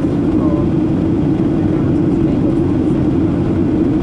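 Steady cabin noise of a Boeing 737-800 in flight during its descent: the low drone of the CFM56 engines and the rush of air past the fuselage, heard inside the cabin.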